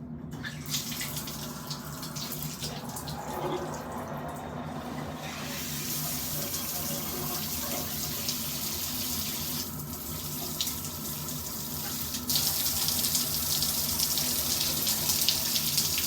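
Handheld shower head spraying water in a steady hiss. The spray gets louder about five seconds in and again about twelve seconds in.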